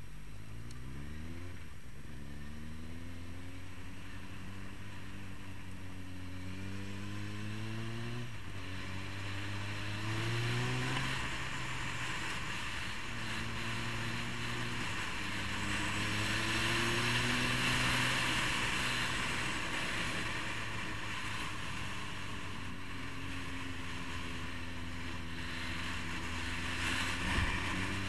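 Motorcycle engine accelerating through the gears: its pitch climbs in each gear and drops back at each of several upshifts, then holds at a steady cruise before picking up again near the end. Wind rushing over the microphone grows louder as the speed builds.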